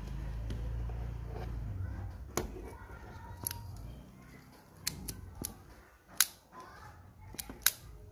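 A low hum fades out in the first two seconds. Then come a string of sharp, separate clicks and taps from the metal chassis and plastic parts of a cassette deck mechanism being handled, the loudest about six seconds in.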